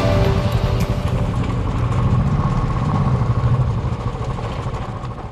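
Royal Enfield motorcycle engine running steadily, fading away near the end.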